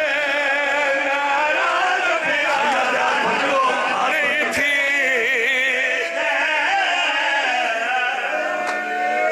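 Men's voices chanting a long, wavering devotional recitation through a microphone and loudspeakers, the pitch sliding up and down without break.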